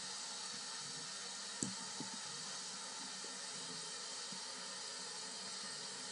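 A thin stream of tap water running from the spout into the sink: a steady hiss. Two short, light knocks come about a second and a half and two seconds in.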